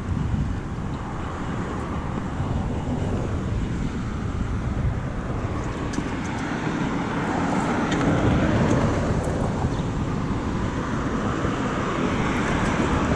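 Road traffic noise, a vehicle passing and swelling loudest about eight seconds in.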